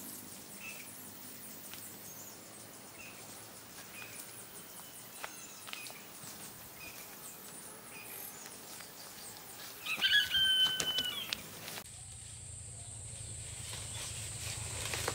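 Quiet outdoor ambience with faint scattered ticks and chirps; about ten seconds in, a short loud bird call. From about twelve seconds a steady high-pitched drone with a low hum underneath takes over.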